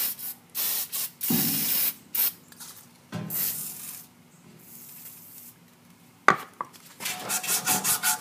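Aerosol can of PB Blaster penetrating oil sprayed in several short hisses onto a rusty blower motor shaft, to loosen it from the squirrel-cage wheel hub. A sharp click comes a little after six seconds, then quick back-and-forth rubbing of sandpaper on the shaft near the end.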